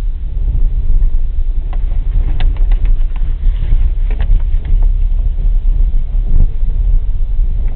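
Car driving on a rough dirt track, heard from inside the cabin: a heavy steady low rumble of engine and tyres, with a cluster of short knocks and clicks from about two to five seconds in.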